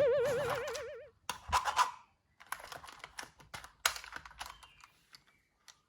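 A wobbling, warbling tone fades out about a second in, followed by irregular light clicks and taps, as of plastic toy pieces being handled and snapped together.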